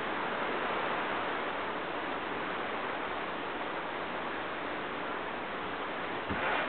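Steady hiss of rain falling, with a short thump and brief louder rustle near the end.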